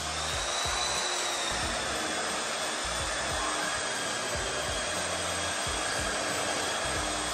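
A small electric motor blowing air runs steadily: an even rushing hiss with a faint high whine. It starts suddenly.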